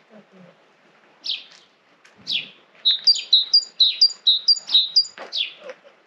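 Small songbirds chirping: several sharp chirps that sweep down in pitch, and from about three seconds in a quick run of repeated high two-note calls, about four a second.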